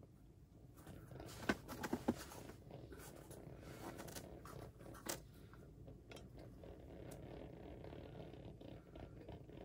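Small winter ice-fishing rods being handled: light scraping and rustling, with a few sharp clicks about one and a half to two seconds in and one more near the middle.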